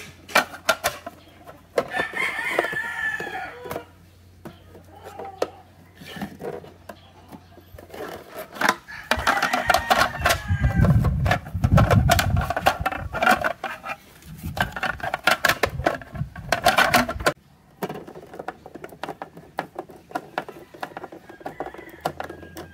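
Chickens in the background, with roosters crowing in long calls a few times, over sharp clicks and knocks of hard plastic armrest parts being handled and set down on a wooden table.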